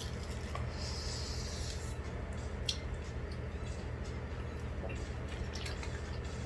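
Eating sounds: soft wet chewing and small clicks while spicy noodles and rice cakes are eaten, with a brief hissy slurp about a second in, over a steady low hum.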